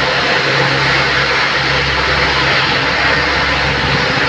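Military aircraft engine running loud and steady, a dense even noise with a low steady hum underneath.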